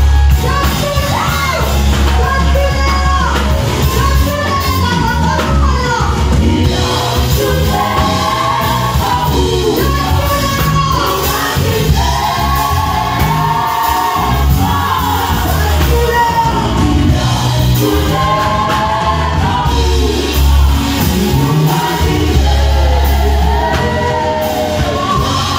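A vocal group singing live over band accompaniment with a heavy bass line.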